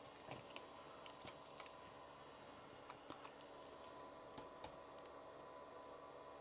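Near silence: a few faint, scattered small clicks from hands and tools working on an amplifier on a workbench, over a faint steady hum.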